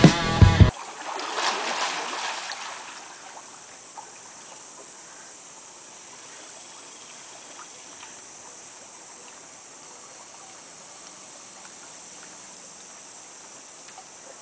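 Pool water splashing and lapping as a dog paddles through it, louder for the first couple of seconds, then a faint steady wash of water.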